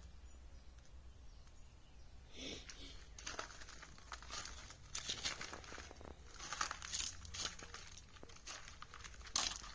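Footsteps crunching on loose gravel, in irregular bursts as the person walks.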